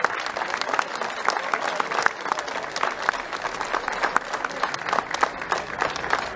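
Crowd of people applauding, a steady dense clatter of many hands clapping.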